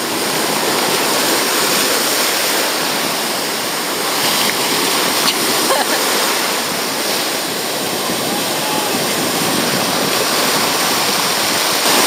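Ocean surf washing and breaking in the shallows: a steady rushing wash of water.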